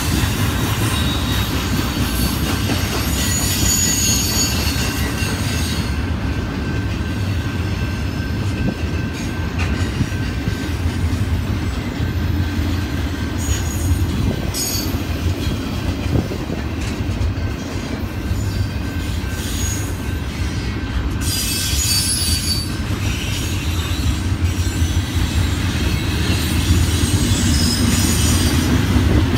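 Double-stack intermodal container train rolling past: a steady low rumble of the well cars on the rails, with high-pitched wheel squeal that comes and goes several times.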